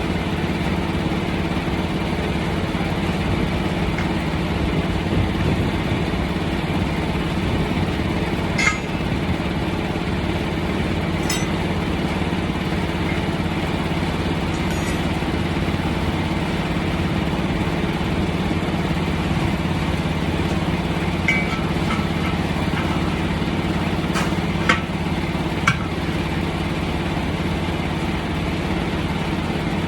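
An engine idling steadily, with a few sharp metallic clinks of tools or parts, most of them in the second half.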